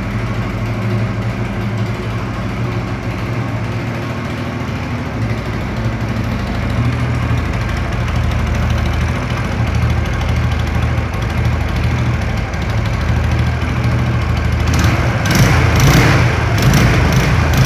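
Motorcycle engine idling steadily. From about 15 seconds in, sharp rhythmic ticking joins it, about two a second: the strange noise the owner wonders may come from the exhaust.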